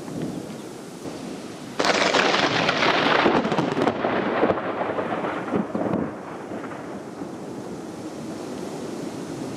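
Thunderclap: a sudden crack about two seconds in that rumbles on for a few seconds and dies away, over a steady hiss of rain.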